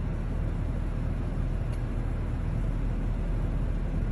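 Steady low rumble of a moving vehicle heard from inside it: road and engine noise.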